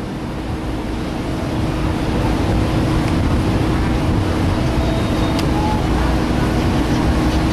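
Steady low rumble of a cruise ship's engines with a constant hum, growing a little louder over the first two seconds.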